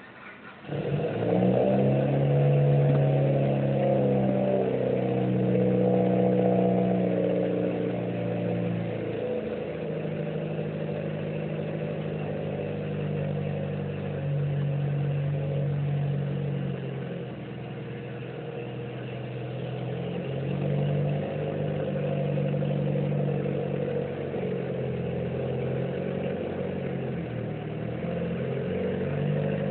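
Mitsubishi Lancer Evolution VIII's turbocharged four-cylinder engine starting under a second in, now that the clutch pedal is pressed as the manual car requires, then idling with its engine speed shifting up and down a few times.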